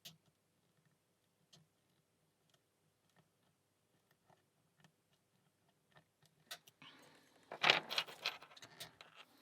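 Lock pick and tension wrench working the pins of a small three-pin Alpha 1000-15 padlock: faint, scattered metallic clicks, then a louder burst of scraping and rattling metal about seven seconds in.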